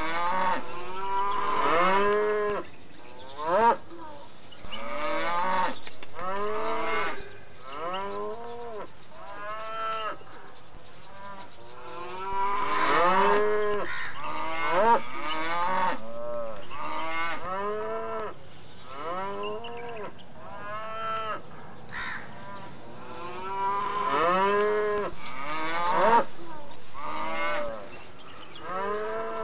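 A herd of dairy cattle mooing, many short calls one after another and overlapping.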